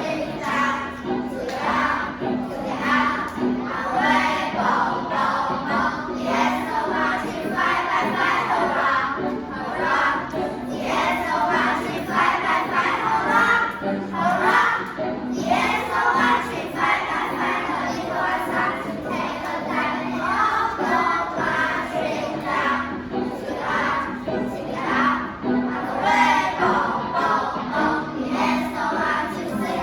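A class of schoolchildren singing an English song together as a group, with a steady low accompanying tone underneath.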